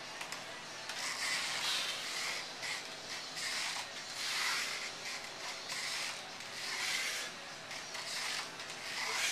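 A man breathing hard and rhythmically through repetitions of a suspended TRX core exercise: rasping breaths about once a second.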